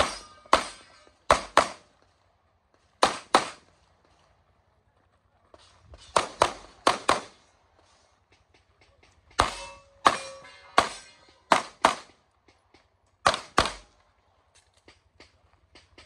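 Pistol fired in quick pairs (double taps), about seventeen sharp shots over the stretch with short pauses between the pairs, each shot ringing out briefly.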